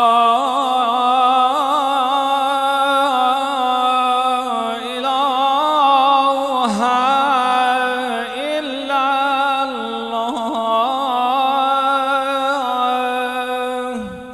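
A male muezzin chanting the closing "lā ilāha illā-llāh" of the Shia adhan (call to prayer) as one long melismatic phrase. The voice holds a steady pitch decorated with quick wavering turns, breaks briefly about halfway through, and fades out at the very end.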